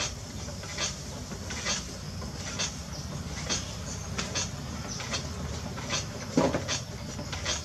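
A spinning potter's wheel with hands working wet clay: a steady low rumble, with a soft swish about once a second. There is a louder knock about six seconds in.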